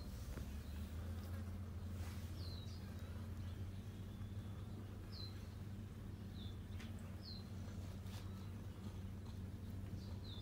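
A steady low buzzing hum, with short high descending chirps every second or two.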